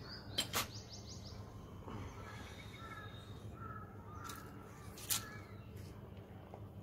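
A bird calling in a run of short, repeated calls from about two to five seconds in, over a steady low background. Two sharp knocks come about half a second in and just after five seconds.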